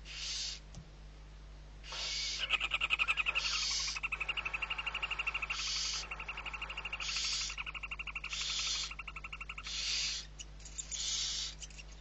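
Barn owl nestlings calling with repeated breathy, hissing begging calls of about half a second each, about eight in all, while the adult feeds them. A fast twittering chatter runs underneath from about two seconds in until near the end, loudest early on.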